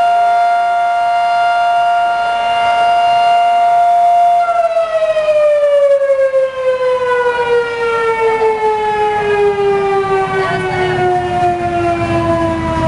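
Outdoor civil-defense siren sounding for its noon test: a loud, steady wail for about four seconds, then winding down, its pitch falling slowly and smoothly for the rest of the time.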